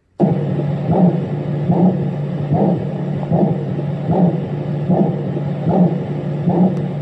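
Renpho sound machine playing its recorded train sound: a steady rumble with a regular clack about every 0.8 seconds, starting suddenly.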